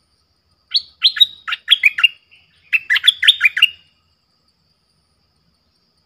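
Bulbul calling: two quick bursts of sharp chirps, each note falling in pitch, the first about a second in and the second near three seconds.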